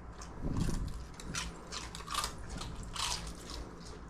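A dog chewing a crunchy baked fish-jerky treat, with a few crisp crunches spaced under a second apart.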